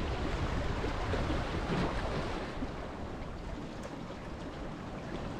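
Steady wind noise on the microphone over sea water washing against a rocky shore.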